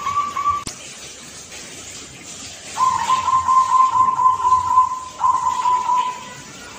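Zebra dove (perkutut) cooing: a phrase ends just after the start, then from about three seconds in comes a long, rapidly pulsing coo on a level pitch, followed by a shorter one. A single click sounds just under a second in.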